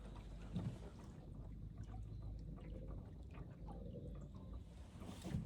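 Quiet river ambience heard from a boat: faint water sounds with scattered small clicks and a couple of soft knocks, one about half a second in and one near the end.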